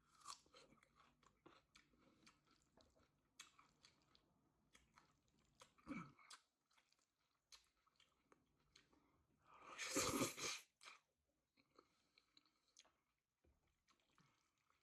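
A person chewing food close to the microphone: wet chewing with crisp crunches and small mouth clicks, and one louder crunch, about a second long, around ten seconds in.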